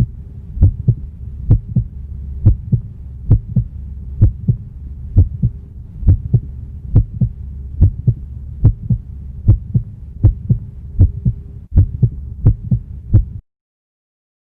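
Heartbeat sound effect: paired low thumps, about one beat a second, over a steady low drone. It cuts off near the end.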